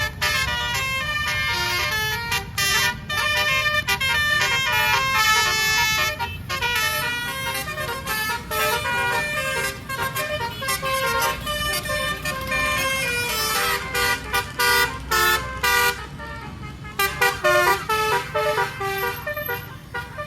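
Telolet basuri musical horns playing tunes, the horn trumpets sounding quick notes that step up and down in pitch. Near the end the tune breaks into short separate blasts.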